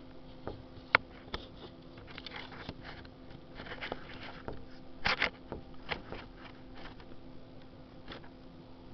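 Handling noise close to the microphone: scattered clicks and short rustles over a steady low hum. There is a sharp click about a second in and a louder burst of rustling a little past five seconds.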